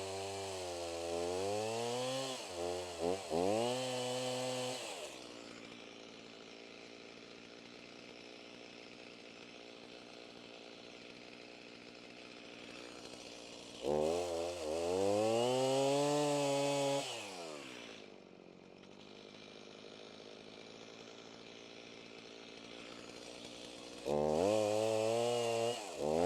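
A small engine revved in three bursts, its pitch swinging up and down, and settling back to a quieter steady idle between them.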